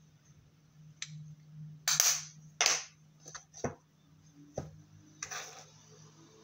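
A series of sharp plastic knocks and clacks as a blush compact is rapped to knock its crumbled pressed powder out, the loudest about two seconds in, over a faint low hum.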